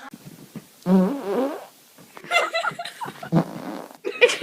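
A person farting: a loud, pitched fart about a second in, followed by further short pitched sounds and another loud one near the end.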